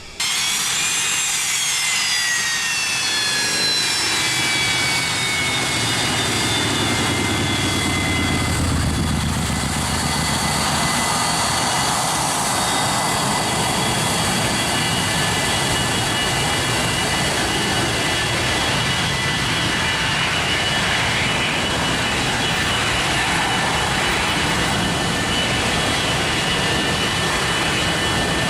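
Jet aircraft engines running loud and steady. A high whine falls in pitch over the first several seconds, then holds steady.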